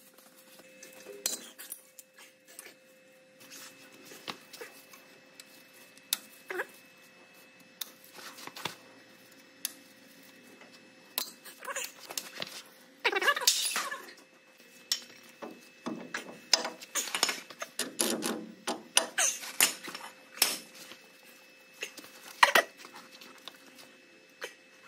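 Irregular metallic clinks, knocks and scrapes of a hand tool working on a truck's exposed drum-brake shoes and return springs, with a few longer scraping spells about halfway through.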